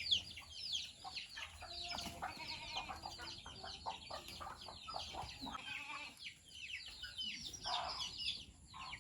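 Chickens clucking and peeping, a busy stream of short, high, falling chirps with a few lower calls among them.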